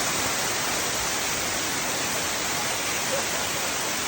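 A waterfall rushing close by, a steady, unbroken roar of falling water.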